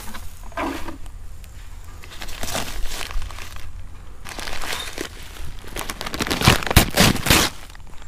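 A thin plastic bag crinkling in short bursts as a hand picks it up from the grass and opens it. The crinkling is loudest a little before the end.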